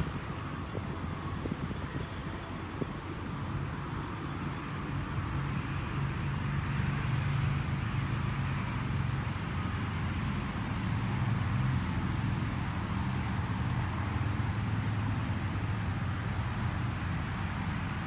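Outdoor ambience of a truck rest area: a steady low vehicle rumble that grows louder in the middle, with insects chirping in a regular high-pitched pulse, about two to three chirps a second.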